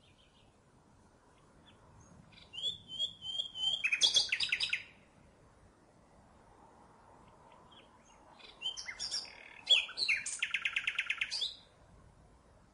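Common nightingale singing two song phrases a few seconds apart. Each phrase is a string of varied high whistled notes that ends in a fast run of rapidly repeated notes.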